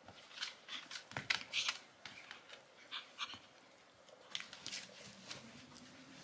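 A toy poodle tugging and mouthing at a plush toy: faint, irregular short scuffling and breathy sounds.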